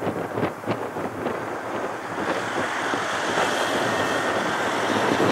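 Wind buffeting the microphone, then the four jet engines of a Boeing 747-400 on final approach growing steadily louder from about two seconds in, with a faint high whine over the rumble.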